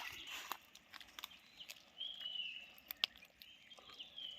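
Short high chirping calls from a small animal, a few times with slight downward glides, over scattered light clicks and ticks.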